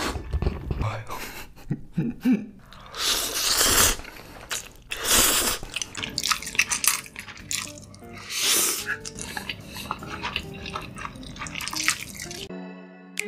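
Close-miked slurping of spicy instant noodles, loud slurps of about a second each, with clicks of chopsticks and bowls and chewing between them.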